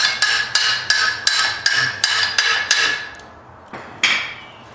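Hammer tapping a greased kingpin through a new lift-kit spindle on a golf cart's front end: a quick, even run of ringing metal-on-metal strikes about three a second. The run stops after about three seconds, then comes one lighter knock and a final ringing strike near the end.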